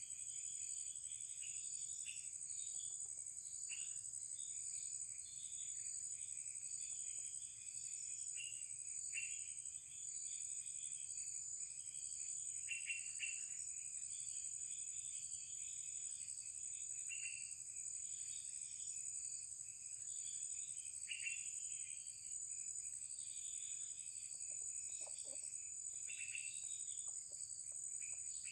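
Steady high-pitched drone of insects, with short bird chirps scattered through it.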